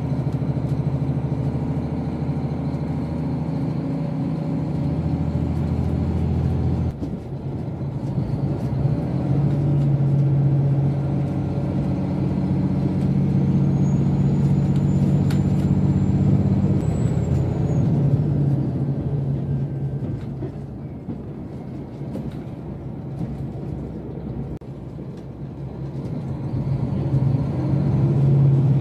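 Diesel train running, heard from inside the carriage: a steady low engine drone over rail and wheel noise. The drone drops suddenly about seven seconds in, returns stronger a couple of seconds later, eases off for a few seconds near the end, then picks up again.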